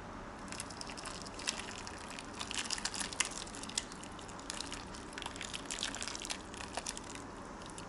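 Tomato sauce with vegetable chunks being poured from a frying pan over stuffed peppers in a glass baking dish: irregular wet splashing and spattering that starts about half a second in and stops shortly before the end.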